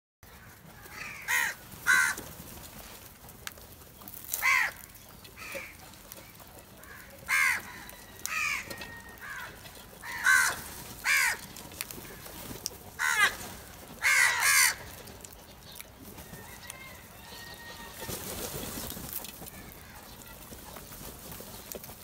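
A flock of house crows cawing: about a dozen harsh caws, singly and in pairs, over the first two-thirds. A brief rush of noise follows later on.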